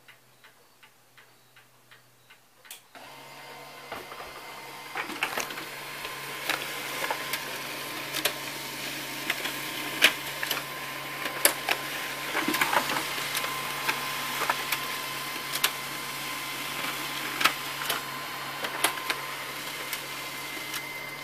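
HP LaserJet Pro P1606dn laser printer waking from standby about three seconds in and running a two-sided print job. It gives a steady, quiet mechanical hum with a faint whine, broken by irregular clicks and clacks from the paper feed and duplex mechanism, and a higher whine comes in near the end.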